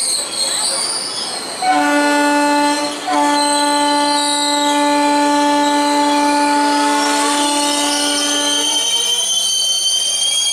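Indian passenger train's horn: a short blast, then a long steady one lasting about six seconds. Under and after it, a high metallic squeal from the coaches' wheels on the rails, wavering at first and becoming a steady, slowly rising whine near the end.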